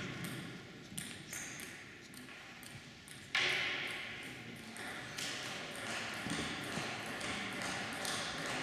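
Table tennis balls clicking sharply and irregularly off tables and bats in play at neighbouring tables in a reverberant sports hall. About three seconds in, a sudden loud rush of noise starts and slowly fades.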